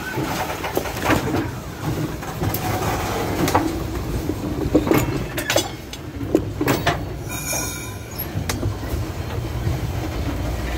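Railroad passenger car rolling along the track, heard from on board: a steady low rumble of wheels on rail with irregular clicks and clanks. A short, high wheel squeal comes about seven seconds in.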